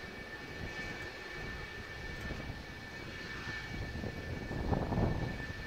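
Twin J79 turbojets of an F-4EJ Kai Phantom II taxiing at low power: a steady high whine over a rumble that swells briefly near the end.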